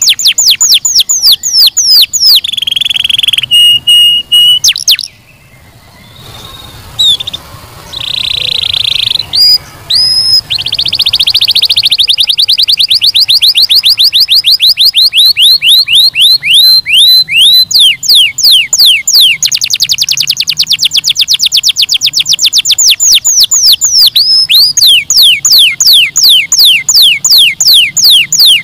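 Domestic canary singing loudly in fast trills: quick strings of notes that each sweep down in pitch. A short held whistle comes near the start and a brief pause about five seconds in, then a long unbroken trill.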